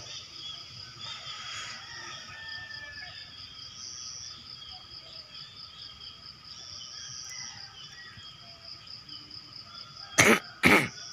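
A person coughs twice in quick succession near the end, the two coughs the loudest sounds. Beneath them a steady, high insect trill and scattered bird calls go on throughout.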